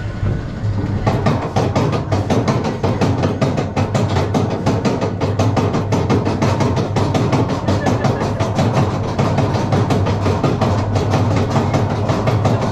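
Vekoma mine train coaster climbing its lift: a rapid, even clicking of about ten a second, starting about a second in, over a steady low hum of the lift drive and wheels.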